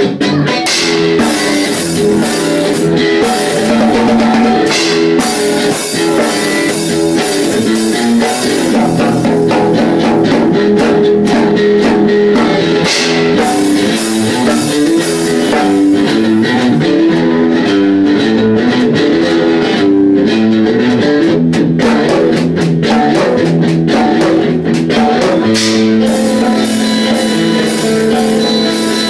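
Guitar played loudly over a drum kit, rock music with shifting notes and frequent drum hits.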